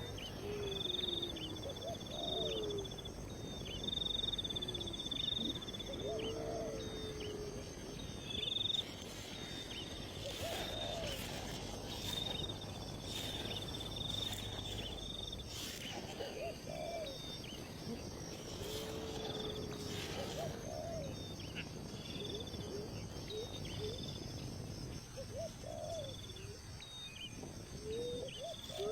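Wild animal calls: a high, steady chirping note repeated every second or so, with lower rising-and-falling calls every few seconds.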